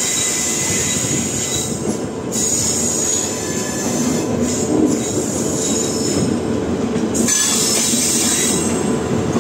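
Two passenger trains running side by side on parallel tracks, heard from one of the moving coaches: a steady rumble of steel wheels on rail with a high screeching hiss from the wheels. The hiss drops away briefly about two seconds in and again about seven seconds in.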